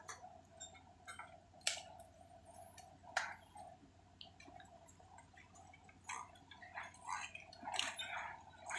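Faint construction-site noise: a steady mechanical hum with scattered clicks and a few sharper knocks, about two seconds in, three seconds in and near the end.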